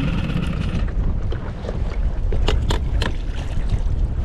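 Wind buffeting the microphone on a small boat in choppy water, with a few sharp knocks about two and a half to three seconds in.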